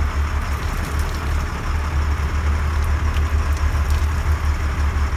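Sportfishing boat running through rough seas in rain: a steady low engine drone with wind buffeting and rushing water and spray.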